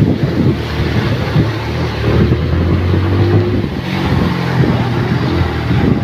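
Small motorcycle engine running steadily as it rides along a wet, partly flooded road, its pitch rising and falling a little with the throttle, over the hiss of tyres through water.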